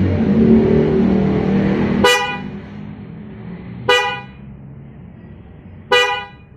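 Aftermarket snail horns on a car, wired through a horn relay, giving three short toots about two seconds apart. Before the first toot, a louder steady sound stops about two seconds in.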